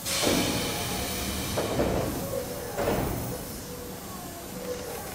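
Electric commuter train's pneumatic sliding doors operating at a platform: a sudden rush of air with a thud at the start, then two more shorter rushes about one and a half and nearly three seconds in.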